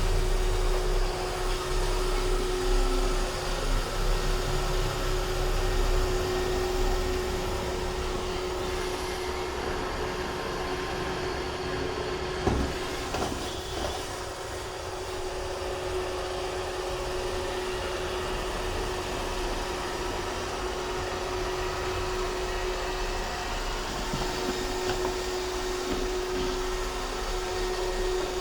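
iRobot Roomba 630 robot vacuum running: a steady motor hum holding one constant tone over a rushing noise, with a single knock about halfway through.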